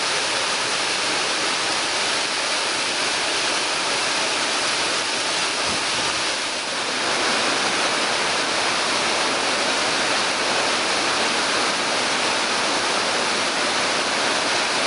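Steady rushing of a two-tier waterfall, about 30 m in all, pouring into a large plunge pool. The level dips slightly about six and a half seconds in.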